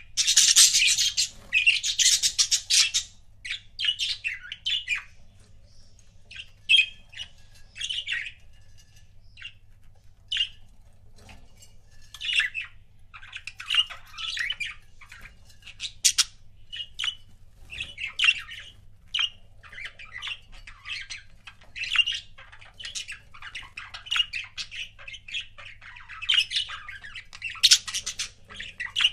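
Budgerigars chirping and squawking in quick, irregular calls, with a dense, loud burst of chatter in the first few seconds and another near the end.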